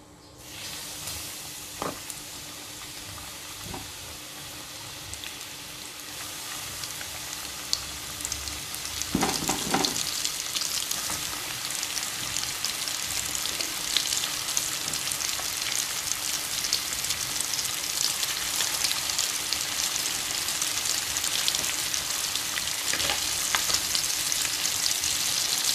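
Flour-coated chicken pieces deep-frying in hot oil in a wok: a dense crackling sizzle that starts suddenly about half a second in, as the chicken goes into the oil, and grows steadily louder.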